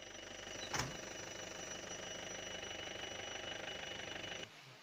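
Vehicle engine running steadily with a thin high whine over it and a sharp click about a second in; the sound cuts off abruptly near the end.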